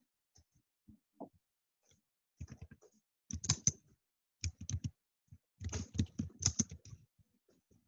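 Computer keyboard typing: quick runs of keystrokes in several groups with short pauses between them, starting about two seconds in.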